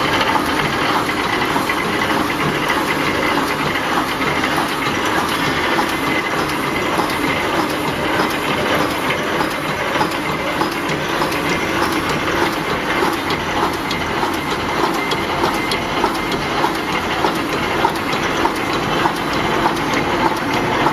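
Fully automatic welded wire mesh roll machine running, making a loud, steady mechanical clatter full of rapid repeated clicks.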